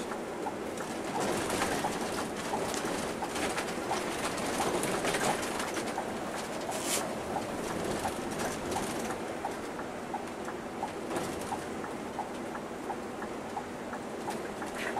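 Cabin noise of a Scania K360 coach under way: steady engine and road noise heard from the front of the bus, with a light tick repeating about twice a second and occasional rattles.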